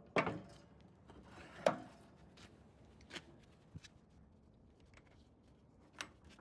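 A few scattered metal clicks and knocks as a snow blower wheel is fitted back onto its axle and secured with its locking pin. The sharpest knock comes about a second and a half in.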